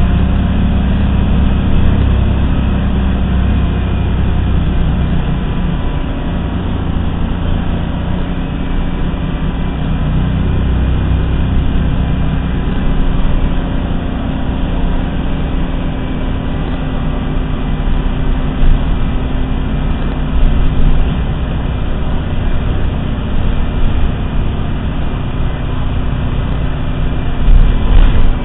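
Cabin noise of a 1988 Orion I city bus on the move: a steady diesel engine drone and road rumble, with a few brief jolts, the biggest near the end. The uploader calls the engine a bad one.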